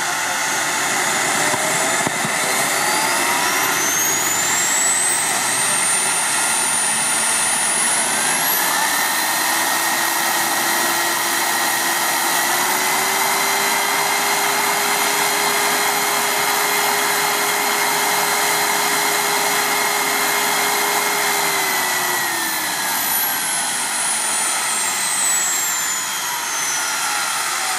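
JetCat SPT 15 model turboprop engine running at full volume in a 1:2.5-scale PC-21 model: its turbine whine climbs for several seconds, steps up twice, holds steady for about ten seconds, then falls away over the last few seconds as the engine is run back down.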